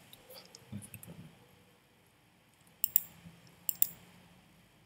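Computer mouse clicks: two quick pairs of sharp clicks, about three seconds in and again just before four seconds.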